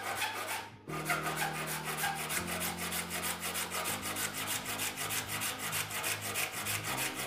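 A handsaw cutting through a small hardwood block, with an even rasping rhythm of saw strokes and a brief pause just before one second in.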